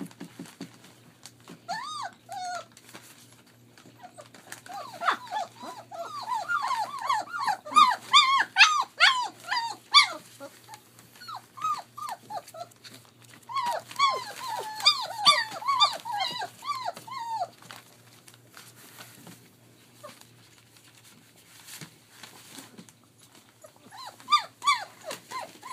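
Three-week-old German Shepherd puppies crying in quick runs of short, high yelps and whines, in several bursts with quiet gaps between.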